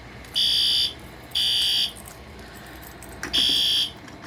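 Electronic fire alarm horn sounding the temporal-3 evacuation pattern: high-pitched half-second beeps in groups of three, with a longer pause between groups. Two beeps, a pause of about a second and a half, then the next group begins.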